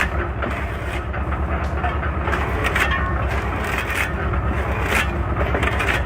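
An engine-driven wood-processing machine running steadily with a pulsing low hum, while wood cracks and snaps sharply several times as it is cut or split.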